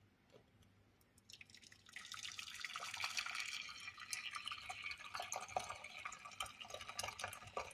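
Water pouring and splashing into a saucepan, starting a little over a second in.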